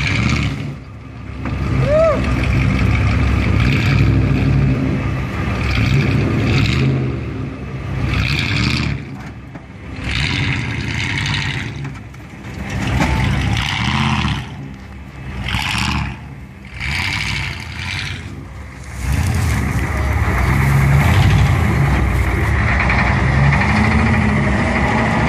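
Pickup truck engine revving in repeated surges as it rams and shoves an old sedan. About two-thirds of the way through, the noise settles into a steady, heavy engine run, the M135 six-by-six army truck's engine.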